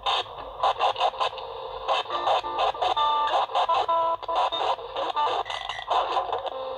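Micro-cassette playing back cut-up tape audio from inside a box baffled with wool and board: short spliced fragments of music and tones that start and stop abruptly, one after another. The sound is thin, with little bass.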